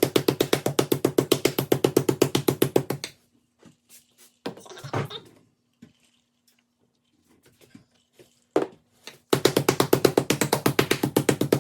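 Meat mallet pounding raw boneless chicken breasts flat under plastic wrap: fast, even blows, several a second. They stop about three seconds in, with a few scattered soft knocks and rustles, then start again about nine seconds in.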